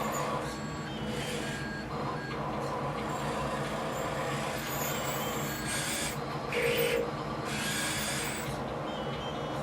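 A small motor running with a steady hum, with brief hissing bursts about six and eight seconds in.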